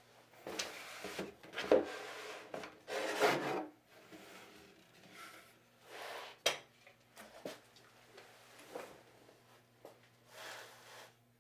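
Hands rummaging in a cardboard box: cardboard and paper rustling and rubbing in several bursts, a sharp knock about six and a half seconds in, a few small clicks, and a last short rustle near the end. A faint steady hum lies underneath.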